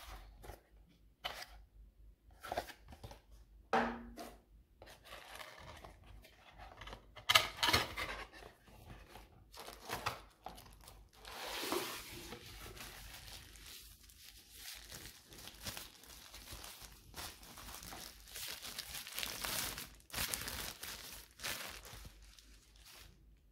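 Cardboard packaging being opened and handled, with a lamp slid out of its box and a thin white protective wrap pulled off: an irregular run of scraping, rustling and crinkling. There is a sharp knock about seven seconds in.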